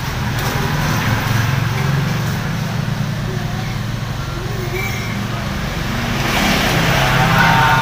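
A vehicle engine runs with a steady low hum. About six and a half seconds in, a rush of passing-traffic noise swells up.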